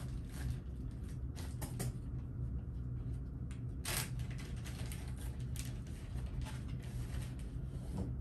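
Rustling and scattered small clicks and knocks of towels and nail-care supplies being gathered, with a sharper click about four seconds in, over a steady low room hum.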